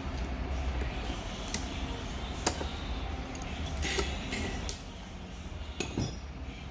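A steady low rumble with a few scattered sharp clicks and knocks, the loudest near the middle and a pair close to the end.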